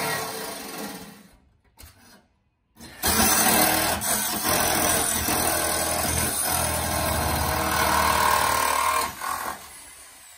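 Corded DeWalt jigsaw cutting through the van's sheet-metal roof panel, a loud steady rasping buzz of the reciprocating blade. It starts about three seconds in after a short quiet gap and dies away near the end.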